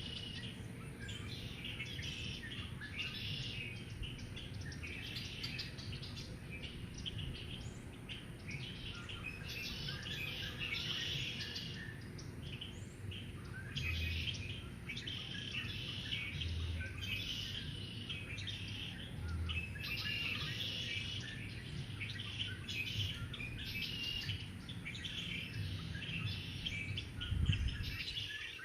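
Several wild birds singing and chirping over one another without a break. A few short, low buzzes come near the middle, as bumblebees fly past, and there is a short low rumble near the end.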